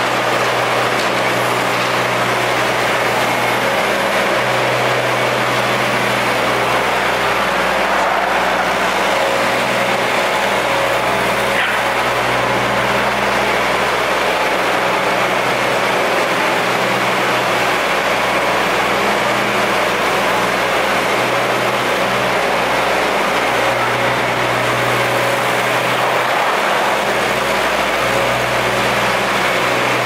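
Case 1845C skid steer's diesel engine running steadily as the machine drives and turns.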